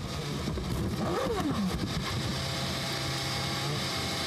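Formula One car's engine heard onboard, its pitch rising briefly about a second in and then falling away, over a steady rushing noise; the sound cuts off abruptly at the end.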